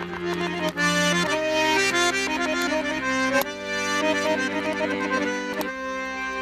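Piano accordion playing a melody on the right-hand keys over sustained bass notes, the bass chord changing about every two seconds.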